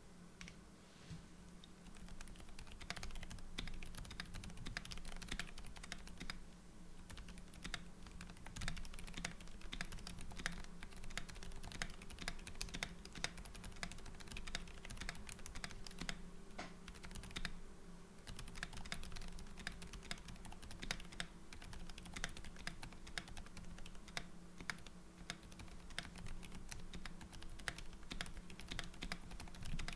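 Typing test on a keyboard fitted with Kailh Deep Sea Lonely Island silent linear switches: a steady run of soft, muffled keystrokes, barely audible on the alpha keys.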